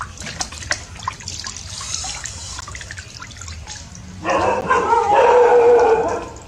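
Water splashing and dripping in a bathtub, then about four seconds in a loud, rough animal cry lasting about two seconds.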